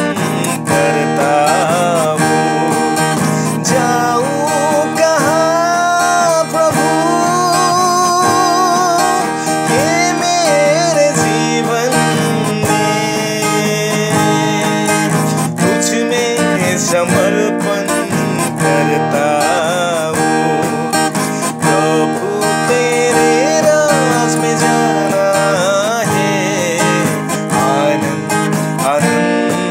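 Acoustic guitar strummed steadily while a man sings a devotional song, his melody wavering with vibrato.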